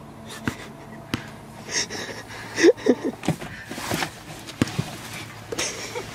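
A person shifting and climbing out of an SUV's cargo area: scattered knocks and bumps, with gasping breaths and a short grunt.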